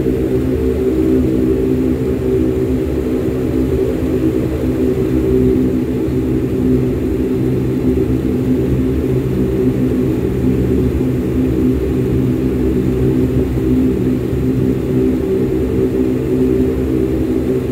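Airliner engines running with a steady drone, heard from inside the cabin: a low hum with several steady tones that hold the same pitch.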